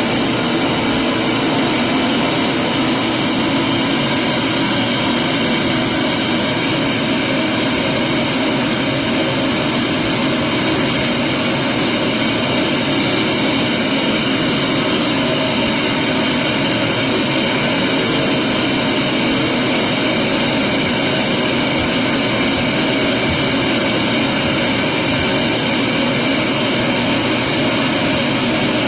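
Vacuum cleaner running steadily with its motor whine, at an even level throughout.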